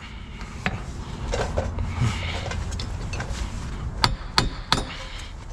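Hammer blows on the front wheel hub of a 2020 Nissan Rogue, metal on metal, tapping the hub off the steering knuckle. A few lighter taps come first, then a quick run of about four sharp, ringing strikes about four seconds in.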